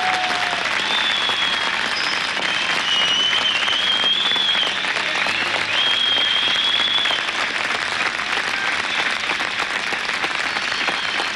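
A large audience applauding steadily after a song ends, with a few high, drawn-out whistles over the clapping.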